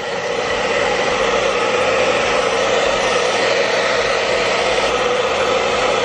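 Handheld hair dryer blowing steadily on its low setting: an even rush of air with a steady hum underneath.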